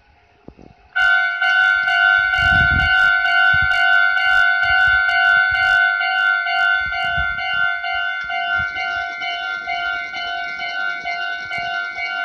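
Japanese railway level-crossing warning alarm, an electronic bell, starting suddenly about a second in and ringing loudly and steadily. It signals that a train is approaching the crossing.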